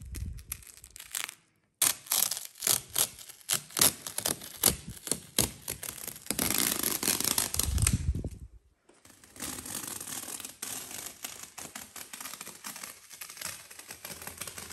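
Masking tape being peeled off freshly painted skirting board and panelling: a run of sharp crackling rips, a longer loud tear, then a steadier ripping as a long strip is pulled away near the end.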